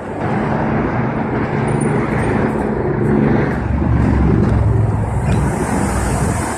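Electric bus on the move: steady road and tyre rumble with a low, even hum from the drive.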